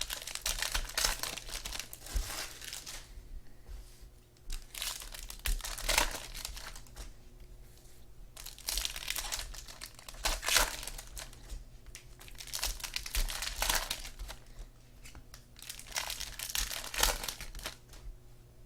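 Trading card pack wrappers being torn open and crinkled by hand, in repeated rustling bursts every few seconds.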